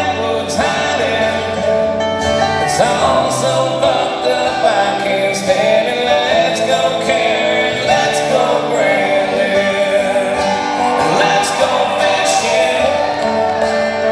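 Live acoustic country music: two acoustic guitars strummed and a hand drum played, with a man singing.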